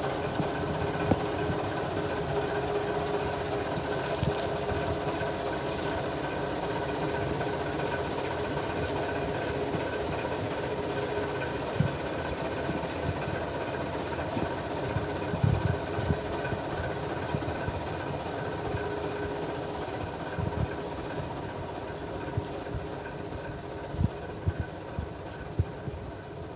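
Diesel engine of a 1990 Ford L9000 dump truck idling steadily with a rhythmic clatter, a few sharp clicks scattered through it, growing slightly fainter toward the end.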